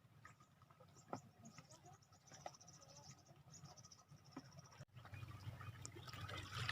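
Faint, rapid high-pitched chirping from a small animal, with scattered light clicks. About five seconds in the sound breaks off and a louder steady hiss of outdoor noise takes over.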